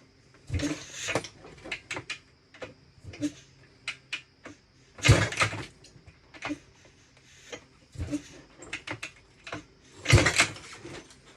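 Kick-start attempts on a 1978 Yamaha YZ400 two-stroke dirt bike: several hard kicks, each a rushing burst as the engine turns over, with clatter and clicks of the kick lever between them. The engine does not catch.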